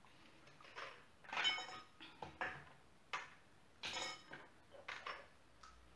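Several separate sharp clinks of a metal spoon and glass against a glass mixing bowl, a couple of them ringing briefly.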